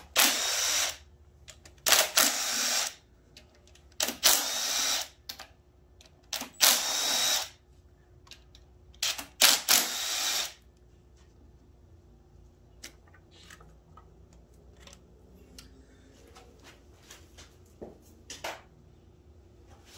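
Cordless power driver backing out the valley-cover bolts on an LS V8 engine, in five short runs of about a second each over the first ten seconds. Faint clicks of handling follow.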